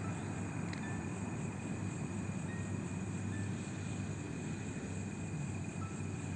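Night-time outdoor ambience: a steady low rumble, with a faint continuous high insect trill and a few brief chirps over it.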